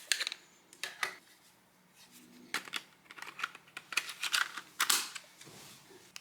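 Clicks and rustles of small plastic parts being handled in short bursts: a click near the start, another about a second in, then a quicker run of clicks and rustling in the middle. A faint steady low hum lies underneath.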